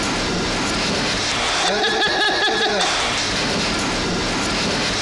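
Steady, loud background noise of a bowling alley, likely its lane machinery running. A person's voice is heard briefly about two seconds in.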